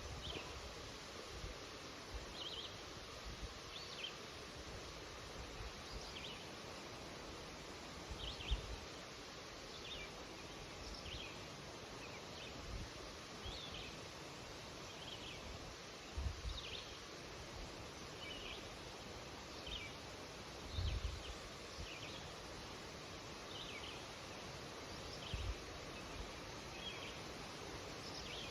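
Birds chirping in short repeated calls, about one a second, over a steady rustle of wind in birch leaves, with a few low wind buffets on the microphone.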